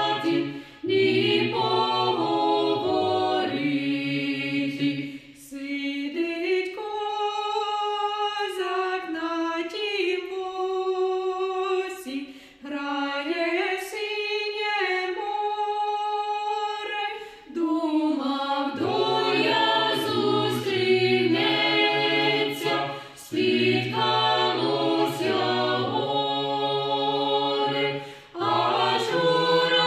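Small mixed a cappella choir singing a Ukrainian folk-choir setting in Ukrainian, in phrases broken by short breaths. The lower voices drop out for roughly the middle third, leaving the upper voices alone, then come back in.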